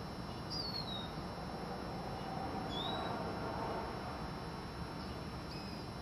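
Lesser goldfinch giving plaintive whistled calls: a falling note about half a second in, a rising note about halfway through, and a short note near the end, over steady background noise.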